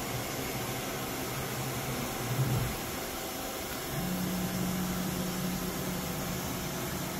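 Steady machinery hum with constant hiss, as from a running motor or blower. A brief thump comes about two and a half seconds in. About four seconds in, the hum gets louder and settles into a steadier, slightly higher tone.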